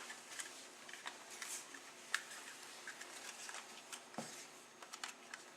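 Faint clicks and light taps of plastic model-kit parts being handled and pressed together, with one louder knock about four seconds in.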